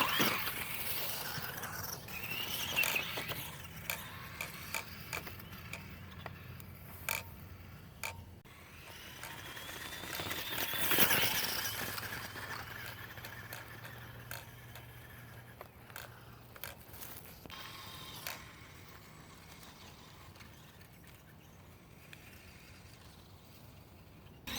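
Radio-controlled trail truck with a 27-turn brushed electric motor whining through its gears as it speeds up and slows down, loudest about halfway through, with scattered clicks and knocks from the chassis over the ground.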